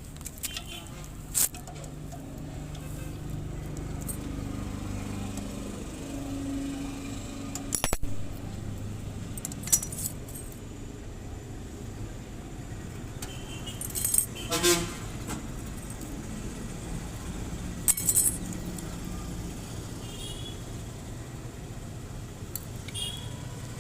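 Honda Unicorn BS6 single-cylinder motorcycle engine running, with sharp metallic clacks and rattles every few seconds; the rattle is the one-way starter clutch noise the video is about.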